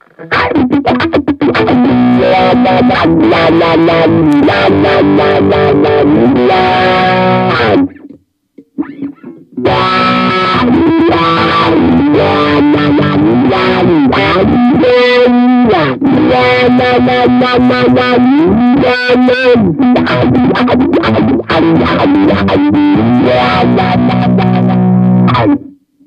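Squier Affinity Jazzmaster electric guitar played through a Fender combo amp: riffs and chords with sliding notes. The playing breaks off for about a second and a half about a third of the way in, then carries on and stops just before the end.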